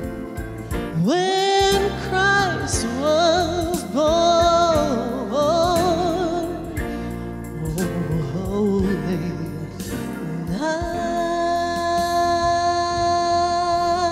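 A woman singing a Christmas song with vibrato over an instrumental accompaniment. From about ten seconds in she holds one long final note.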